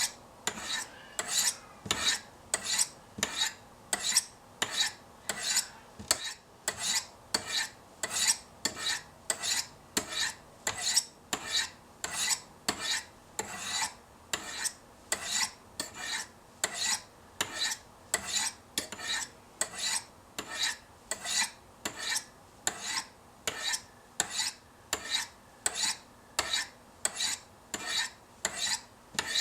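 Steel knife blade drawn down the flat faces of a Spyderco Sharpmaker's medium-grit brown ceramic stones: short, even scraping strokes, about two a second, alternating between the two stones in a steady rhythm as the edge is touched up.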